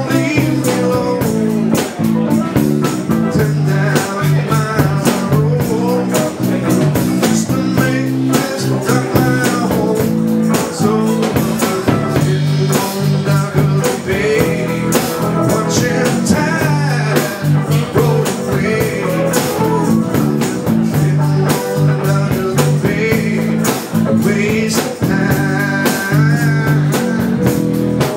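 Live band playing a blues-rock number with electric guitar over bass and a steady drum beat.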